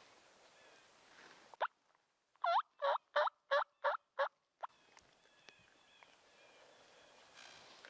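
A wild turkey gobble: a fast, rattling run of about six notes lasting around two seconds, with a single note just before and after it.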